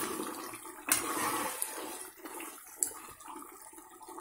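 A steel ladle stirs a thick, simmering chicken curry in a pressure cooker pot, making wet, sloshing, scraping sounds that grow quieter toward the end. There are a couple of sharp clicks, about a second in and again near three seconds.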